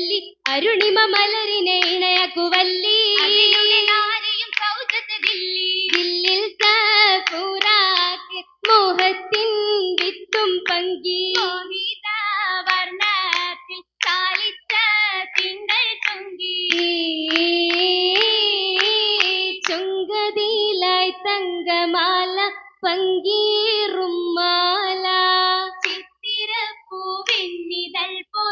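Girls singing a Mappila song for an oppana dance, their high voices carrying the tune, with the dancers' sharp rhythmic hand claps punctuating it throughout.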